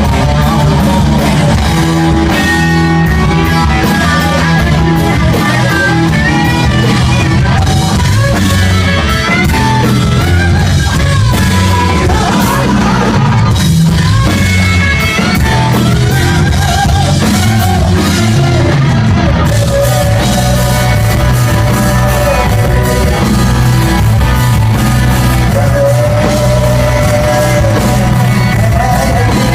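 Live rock band playing loud, with distorted electric guitars, bass, drums and a singing lead vocal.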